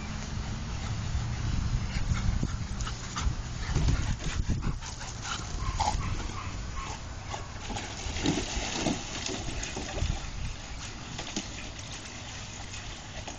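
Two large dogs play-fighting, with short dog vocal sounds over scuffling and jostling; a few brief higher-pitched whines or yelps come midway and again a little later.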